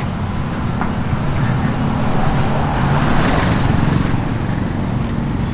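Road traffic: a steady low engine hum, with a passing vehicle swelling loudest about three seconds in.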